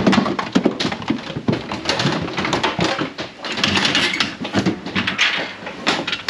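Rapid clattering and knocking on a livestock trailer: sheep hooves on its slatted metal floor, and its metal gates and deck knocking and rattling as they are handled.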